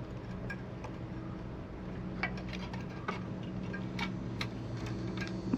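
Scattered light clicks and ticks of small metal parts being handled as the carburetor linkage is hooked back onto a lawnmower engine, over a steady low hum.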